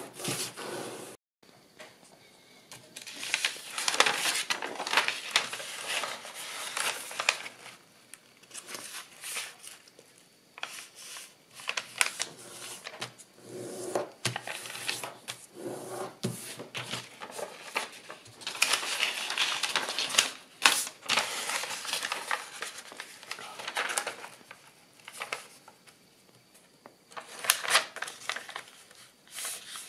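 Kraft paper being folded and creased by hand, rustling in irregular bursts with sharp clicks and short quiet pauses between.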